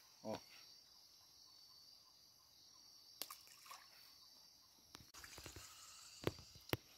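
Crickets chirping faintly and steadily in the night, with a brief vocal sound right at the start and a few sharp clicks in the second half.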